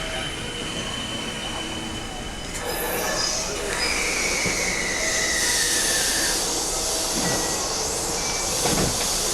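Electric commuter train pulling into the platform and braking: the rush of wheels on rail grows louder about two and a half seconds in, and a whine falls slowly in pitch for a couple of seconds as the train slows.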